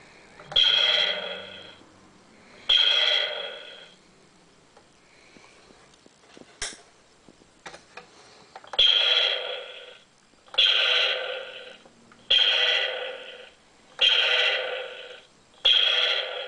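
Recorded "pew" laser-blaster sound effect played through the small speaker of a digital voice recorder built into a Nerf blaster, set off by the trigger seven times. Each shot lasts about a second and fades away. The shots come in a pair, then after a pause with a few sharp clicks, five in a row.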